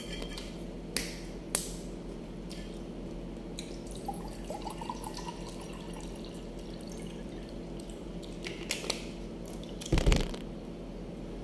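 A plastic water bottle's cap twisted open with a couple of sharp clicks about a second in, then water glugging briefly around four to five seconds in as it is drunk from the bottle. A heavy thump near the end is the loudest sound, over a steady low hum.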